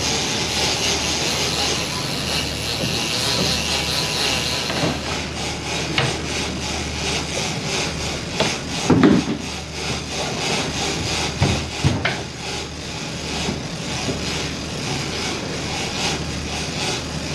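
A boat's engine running steadily under a hiss of wind and water, with a few knocks and thuds, the loudest about halfway through.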